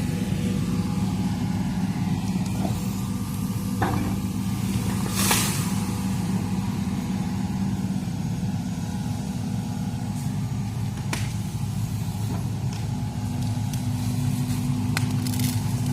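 Hitachi excavator's diesel engine running steadily under working load, with scattered sharp cracks of bamboo stems snapping. The loudest crack comes about five seconds in, and there are several more near the end.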